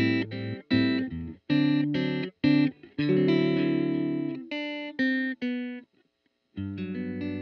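Electric guitar played through the Roscoe six-band EQ pedal: short, choppy chords cut off between strokes, a brief silence about six seconds in, then a chord struck and left ringing near the end.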